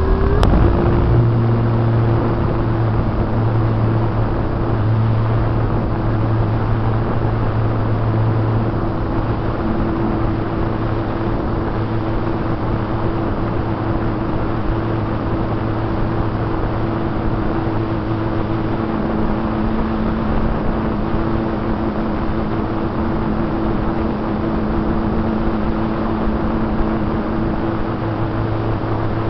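RC plane's motor and spinning propeller running steadily in flight, heard from a camera riding on the plane, over a steady rush of wind across the microphone.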